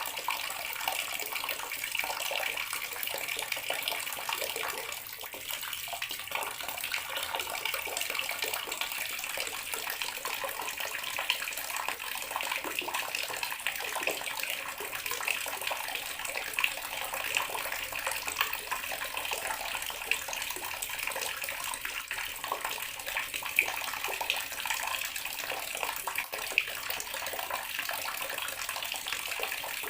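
Water running steadily from a bathroom tap into a sink, a constant splashing stream.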